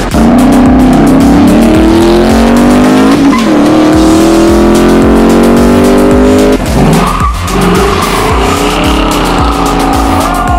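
Car engine held at high revs during a burnout, its pitch climbing slowly in two long pulls with a brief dip about three seconds in, over tire squeal; the revs drop off sharply about six and a half seconds in. Music with a steady bass beat runs underneath.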